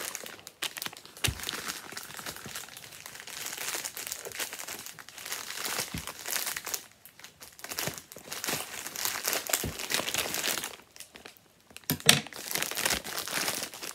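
Plastic courier mailer bag crinkling and rustling as it is cut open with scissors and handled, with small clicks and crackles throughout. After a brief lull near the end comes one sharp, louder crackle of plastic.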